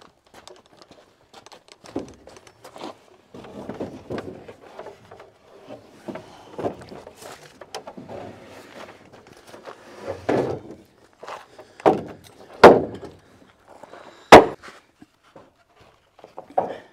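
Timber wall framing being handled and set down on sawhorses: footsteps and the rattle and knock of lumber, with a few sharp wooden knocks in the second half, the loudest two close together.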